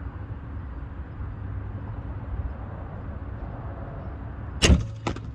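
A crossbow fires with a sharp crack about four and a half seconds in, and under half a second later a weaker smack follows as the bolt strikes the target. A steady low rumble runs underneath.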